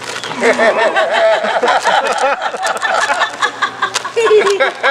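Several people laughing and calling out over one another, with a few sharp clicks mixed in.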